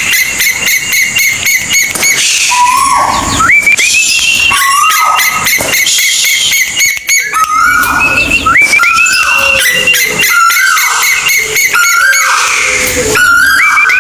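Kolik bird calling: a dense run of loud whistled notes, each rising quickly and then held briefly, repeated about once a second at two overlapping pitches.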